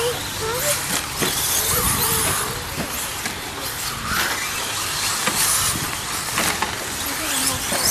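Radio-controlled short-course trucks racing on a dirt track, their motors whining up and down in pitch over a steady noisy hiss.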